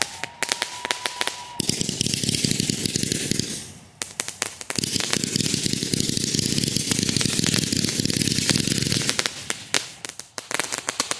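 Fireworks crackling: dense, rapid pops and crackles in two long runs, with sparser separate bangs between them and a faint whistle near the start.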